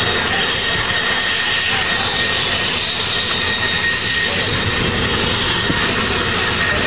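Aircraft turbine engine running steadily, a continuous rushing noise with a high, even whine over it.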